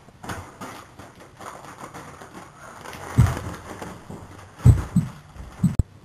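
Rustling handling noise from a moving handheld camera, with a few dull thumps in the second half and a short sharp knock near the end.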